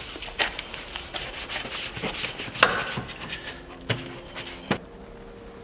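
Detailing brush scrubbing the wet, soapy plastic parts of a car's engine bay: brisk scratchy strokes with a few sharper clicks, stopping about four and a half seconds in.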